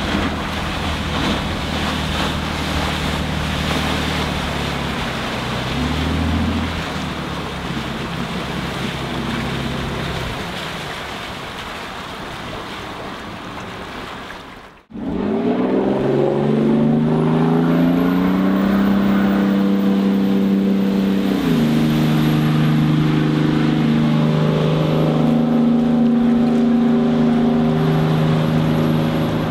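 The Yanmar turbo diesel and jet drive of a Rogue Jet Fastwater 21 aluminium jet boat running on the water, mixed with wind and water noise. The sound cuts off suddenly about halfway. The engine then comes back louder and rises in pitch, with a high whistle climbing and holding, before both drop in pitch a few seconds later.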